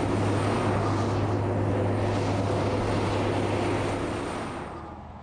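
A heavy multi-trailer road train driving past at speed: a steady deep diesel engine drone under the rush of its many wheels and trailers, dying away in the last second.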